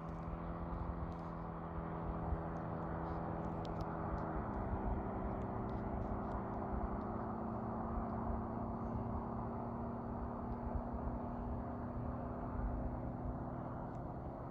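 Steady engine hum with a low drone that drops slightly in pitch about four seconds in and then holds, over a low rumble.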